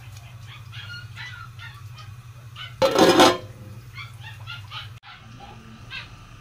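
Short, repeated chirping calls of poultry over a steady low hum, broken about three seconds in by a loud half-second clatter.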